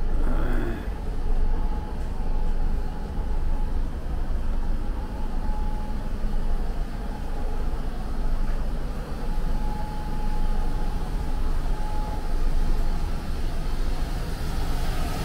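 Steady low rumble and hum of a stationary passenger train coach, its air conditioning and idling machinery running, with a faint steady whine that comes and goes.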